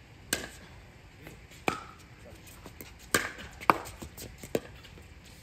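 Pickleball rally: paddles striking the hard plastic ball in sharp pops, five loud hits roughly a second or so apart, with fainter taps between them.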